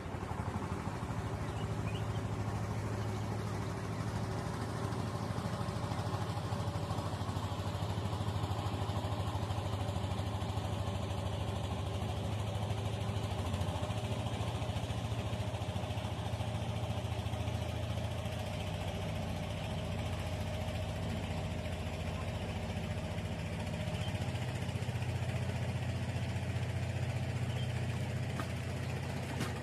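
A small engine running steadily at an even speed, with a low hum that drifts slightly in pitch.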